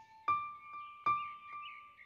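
Background music: slow piano notes, two struck about a second apart and each left ringing, with faint high gliding tones above them.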